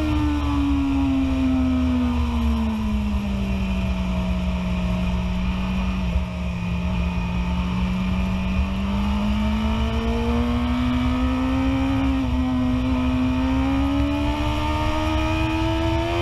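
BMW S1000RR's inline-four engine, heard from the rider's seat over wind rush, in third gear: the revs fall as the bike slows for a corner, hold low for a few seconds, then climb steadily as it accelerates out.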